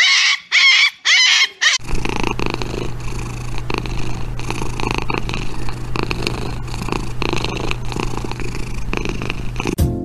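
A husky puppy gives a few short, high, wavering howls, then a kitten purrs steadily and close for the rest of the time.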